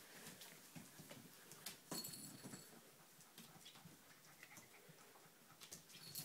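Golden retriever puppies playing, faint scuffling and patting on a blanket, with one brief high squeak about two seconds in.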